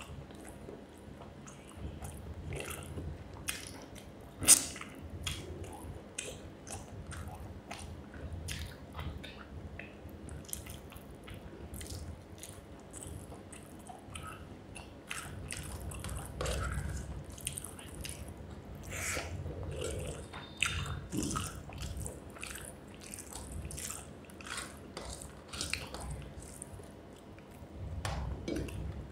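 Close-miked wet chewing and biting of rice with fish curry: irregular moist mouth clicks and smacks, with one sharp loud click about four and a half seconds in.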